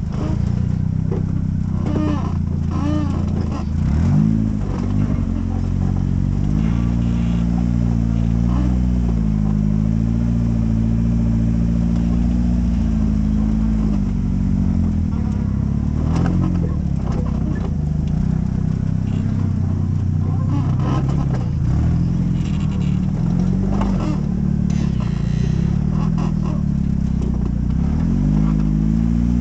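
Rock-crawler buggy engine running at low revs, its pitch rising and falling with the throttle as it crawls over rock, with a few sharp knocks from the rig.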